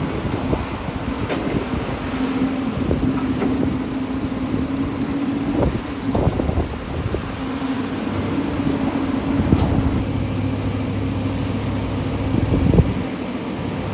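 Heavy earth-moving machinery, a diesel engine running steadily with a low rumble and hum, and a few sharp clanks and knocks through it.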